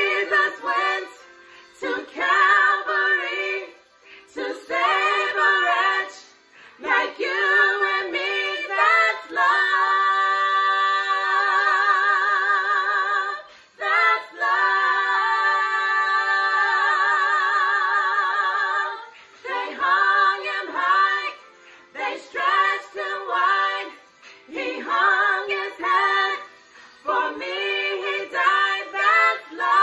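Three women singing a worship song a cappella, in short phrases with brief pauses between them and two long held notes with vibrato about ten and fifteen seconds in.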